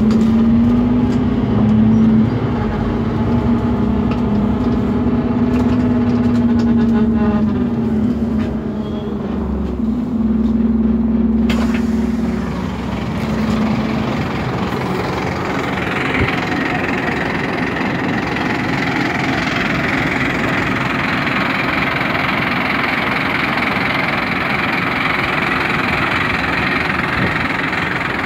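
Scania K230UB city bus with a Scania DC9 diesel running at a standstill. For the first dozen seconds a steady droning hum wavers slightly; after a sharp click, an even rushing noise builds and takes over.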